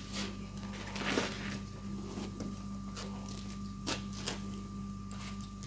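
Coal forge fire crackling, with scattered sharp pops at irregular intervals over a steady low hum.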